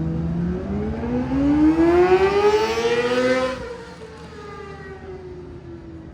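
An engine revving up, its pitch climbing steadily for about three seconds, then the throttle shuts off abruptly and the engine note falls slowly as it winds down.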